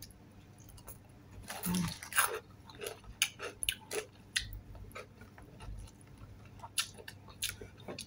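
Close-up biting and chewing of crispy fried chicken skin: irregular crunches and wet mouth clicks that start about a second and a half in, with a short hum of the voice among the first bites.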